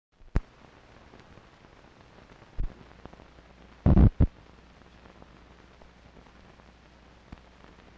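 Old film's optical soundtrack running over the countdown leader: a faint steady hiss broken by sharp pops and crackles from dust and scratches on the print, the loudest cluster about four seconds in.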